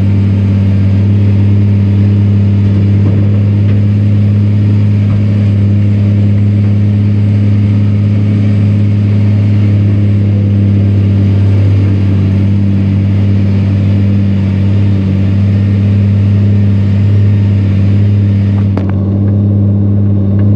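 Iveco truck's diesel engine roaring under load at steady revs, the truck working through deep sand.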